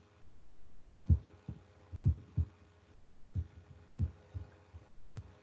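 Soft low thumps, about nine of them at irregular spacing, over a faint steady hum.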